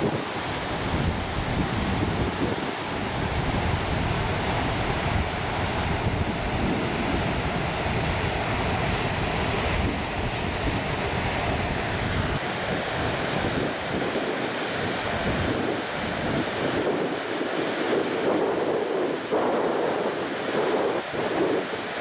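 Floodwater rushing through the open spillway gates of the Pensacola Dam and churning downstream as white-water rapids: a dense, steady rush, with wind buffeting the microphone. About halfway through, the deep rumble drops away and the rush sounds thinner.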